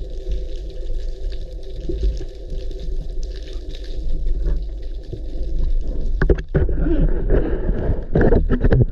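Underwater recording of a steady engine hum with a constant low rumble. From about six seconds in, irregular water sloshing and splashing against the camera grows louder as it nears the surface.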